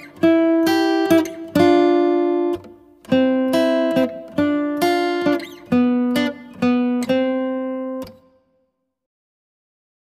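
Intro music: a guitar playing a run of chords, each struck and left to ring. It stops about eight seconds in, leaving silence.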